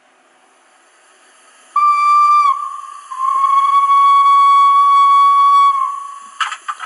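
Zimo sound decoder in an O-16.5 model Manning Wardle steam locomotive sounding its steam whistle: a short toot about two seconds in, then a long steady blast of about three seconds, over a faint steam hiss. A few sharp clicks start near the end.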